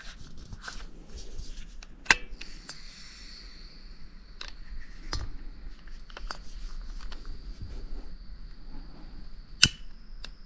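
Camping gear being handled: small clicks and rustling, with two sharp snaps, one about two seconds in and one near the end. A faint steady high-pitched tone sets in a little after the first snap.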